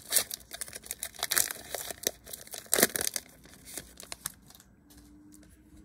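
Foil wrapper of a trading card pack crinkling and tearing as it is peeled open, a dense run of crackles that stops about four seconds in.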